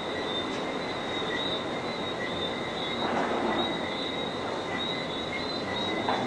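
Tropical night chorus: steady, shimmering high-pitched calls in two bands, heard over a constant hiss.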